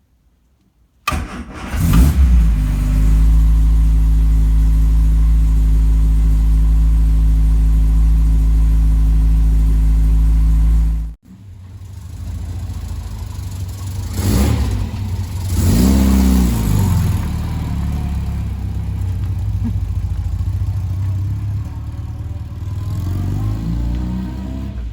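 A freshly restored MG Midget's four-cylinder engine starts about a second in and settles into a steady idle. After an abrupt cut, the engine runs again with revs rising and falling, loudest about halfway.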